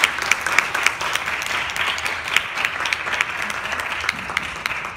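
Audience applauding, with individual claps close by standing out sharply from the general clapping.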